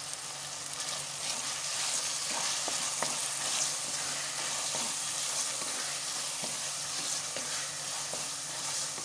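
Chopped tomatoes and onions frying in oil in a pressure cooker with a steady sizzle, sautéing down to soften, while a spoon stirs them with light scrapes and ticks against the pot.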